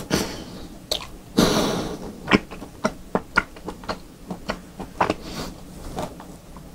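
Close-miked mouth eating sounds: two short, forceful breaths near the start, then chewing with a run of irregular wet clicks and smacks.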